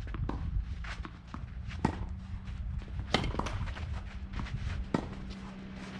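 Tennis ball being bounced and struck with a racket: a handful of sharp knocks spaced a second or more apart, the loudest a little past three seconds in, over a steady low rumble.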